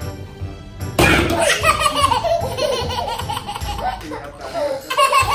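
Young child laughing, starting about a second in, over background music.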